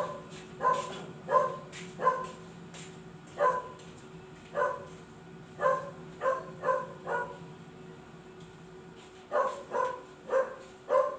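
A dog barking repeatedly: a dozen or so short, sharp barks in irregular runs, with a pause of about two seconds after the middle.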